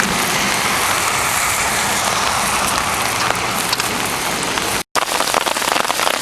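Heavy rain pouring down with a steady hiss. The sound cuts out for an instant about five seconds in, then comes back as a close, dense patter of drops striking.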